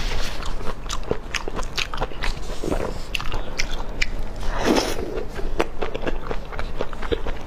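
Close-up crunching and chewing of crisp deep-fried skewer food: many irregular, sharp crunches as it is bitten and chewed.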